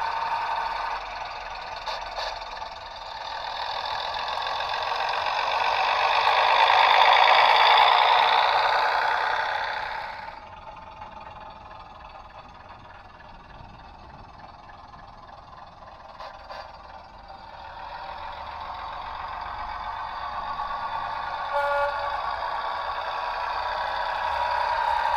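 Sound-equipped OO-scale Bachmann Class 101 DMU model's diesel engine sound through its small onboard speaker, thin with no low end. It builds up as the unit pulls away, drops back suddenly about ten seconds in, then builds again near the end.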